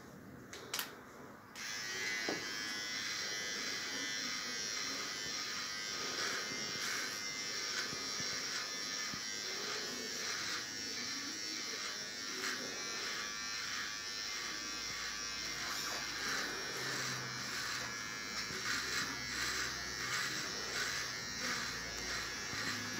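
Electric shaver buzzing steadily as it is run over a man's beard stubble, starting suddenly about a second and a half in after a couple of sharp clicks.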